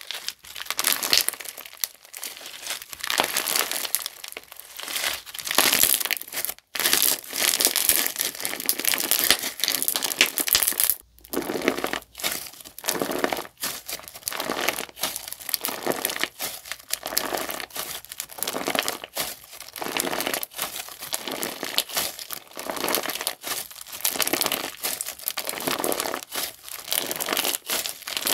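Translucent-base crunchy slime with cube add-ins ('Potato Salad Cube') being squeezed and pressed by hand. It gives a dense, continuous crackling crunch with a couple of brief breaks.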